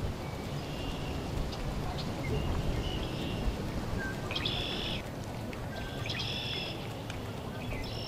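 A songbird calling in short repeated phrases, the clearest a second or two apart in the second half, over a steady low rush of wind.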